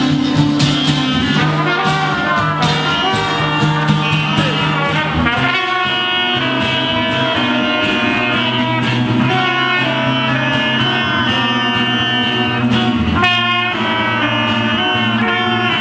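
Instrumental passage of a song led by brass horns over a band, with a change in the bass line about five seconds in.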